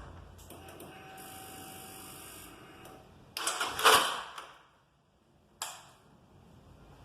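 Honda CB300's electric starter being worked: a loud mechanical burst of about a second just past the middle, then a single sharp click. This is the noise at starting that the mechanic traces to the starter gear set on the engine's left side.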